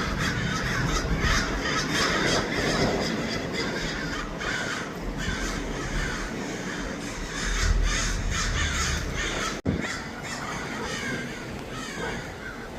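A flock of American crows cawing over and over, many calls overlapping. The sound cuts out for a moment about three-quarters of the way through.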